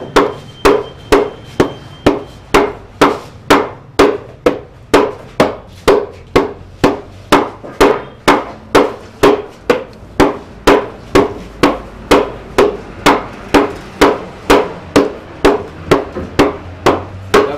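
Long wooden pestle pounding dry spices in a wooden mortar: a steady, even run of dull thuds, about two and a half strokes a second.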